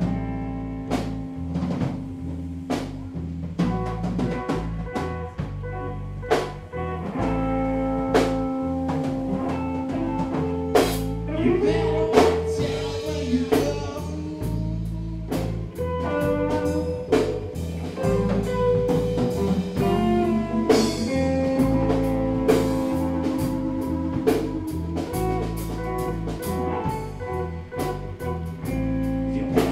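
Live rock band playing: electric guitars, bass guitar and drum kit together, at a steady loud level.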